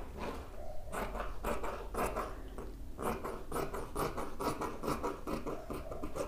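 Dressmaking scissors cutting through fabric, one short snip after another, coming quicker from about halfway through.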